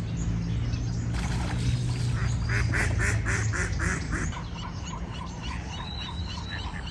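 Ducks quacking: a quick run of about eight quacks, roughly four a second, in the middle. It is followed by a bird's short repeated chirps, all over a steady low rumble.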